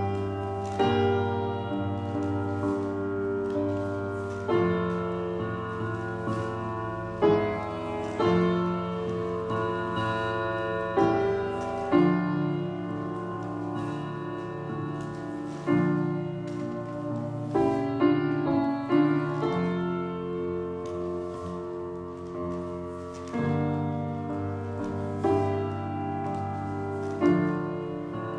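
Solo piano playing slow chords, struck every second or two over held low bass notes.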